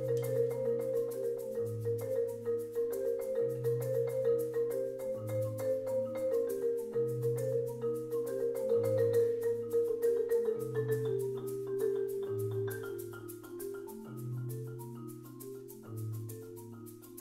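Two marimbas played with mallets by four players: a fast, even stream of repeated mid-register notes over low bass notes that change about every second and three quarters. The playing grows softer over the last few seconds.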